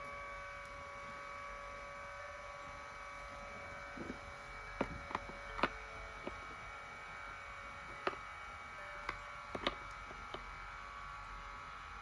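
Steady electric hum made of several held tones, with a run of sharp clicks and knocks from about four to ten seconds in.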